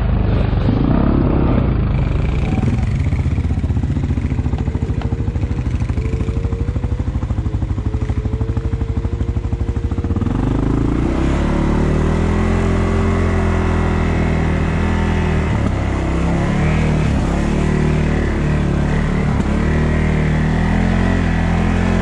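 2022 CFMOTO CForce 600 ATV's single-cylinder engine running at low revs with a fine, even pulsing, then revving up about ten seconds in as the throttle opens, and running steadily at higher revs after that.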